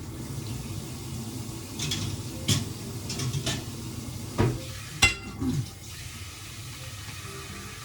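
Kitchenware clattering: a few knocks and clinks, the loudest a ringing clink about five seconds in, over a steady low hum.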